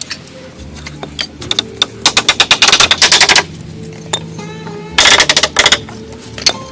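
Two bursts of rapid knocking, each a fast run of sharp taps lasting about a second, over background music.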